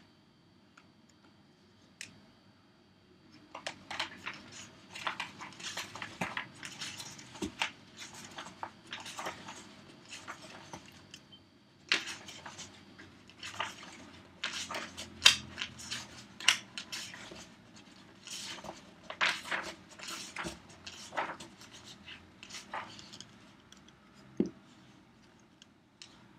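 Close handling sounds at a table: paper rustling and crinkling, mixed with the clicks and squishes of a plastic squeeze bottle being squeezed. They come in irregular clusters of short crackles, starting a few seconds in.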